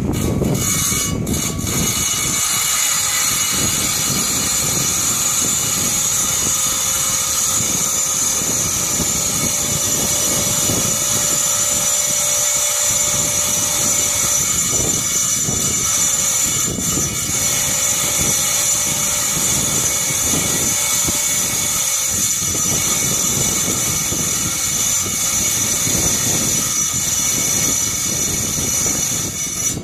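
Harbor Freight electric tile saw running with a steady high-pitched whine, its blade cutting rock.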